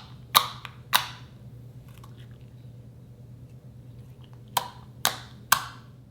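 Slime being pressed and squeezed, giving sharp popping clicks as air pockets burst: two in the first second, then three in quick succession near the end, over a low steady hum.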